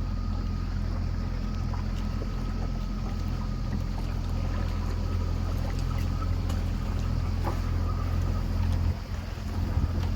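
Tour boat's engine running steadily at cruising speed, a low even hum with water and wind noise over it; the hum briefly drops about nine seconds in.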